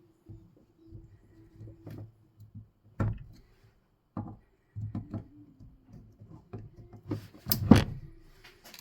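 Small metallic clicks and knocks of a gudgeon-pin circlip being worked into its groove in a diesel piston, with a louder clatter of several sharp clicks near the end as it seats.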